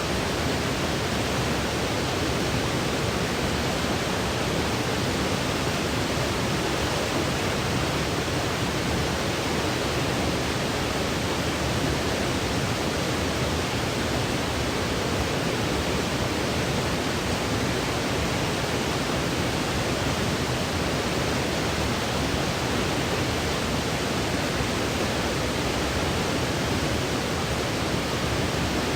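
Generated white noise for sleep: an even, unbroken hiss that never changes in level or character.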